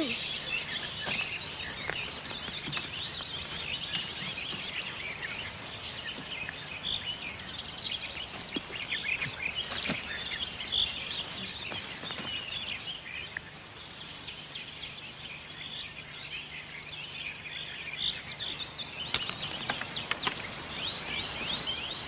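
Woodland birdsong: many small birds chirping and twittering all through, with a few sharp knocks and snaps now and then as branches are handled and stacked.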